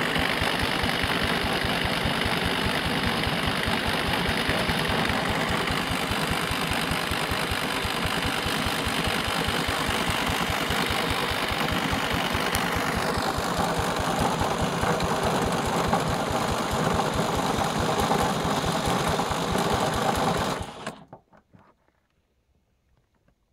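An electric drill on the flywheel nut spins a Briggs & Stratton 3.5 HP lawn mower engine for a cold start. The drill motor whines over a fast, even chugging from the engine turning over. About halfway through, the whine drops in pitch, and the sound stops abruptly near the end.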